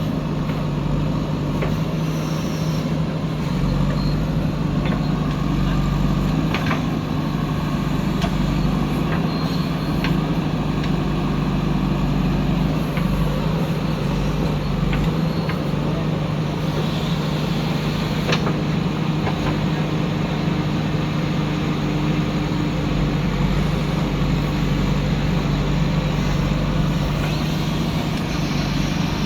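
JCB 3DX backhoe loader's diesel engine running steadily under work, with a few short knocks and clanks scattered through it.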